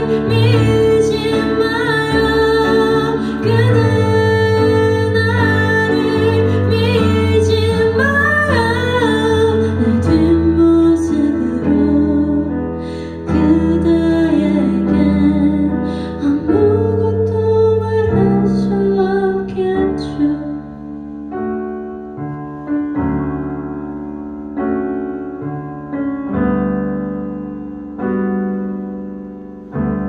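A woman singing a slow, tender song in Korean over chords from a Kurzweil digital stage piano. Her voice drops out about two-thirds of the way through, leaving the piano alone, playing slow chords that each fade away.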